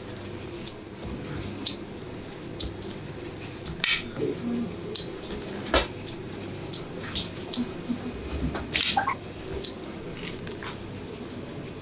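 Hair-cutting scissors snipping and sliding through sections of hair to take out bulk: short, crisp snips at an uneven pace, about one or two a second.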